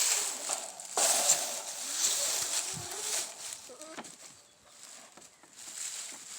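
Water spraying from a garden hose, a hiss that comes in uneven surges and falls away after about three and a half seconds, wetting down wood chips.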